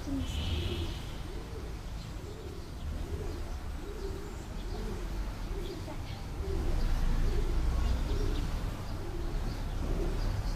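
A pigeon cooing over and over, a low rounded call repeating about every two-thirds of a second, over a steady low rumble.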